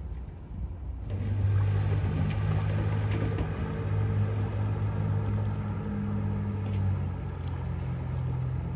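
Small fishing boat's motor running at a steady pitch as the boat pulls away, coming in suddenly about a second in.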